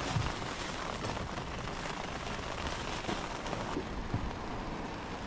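Steady rushing background noise, with a few faint clicks and taps as fishing tackle is handled.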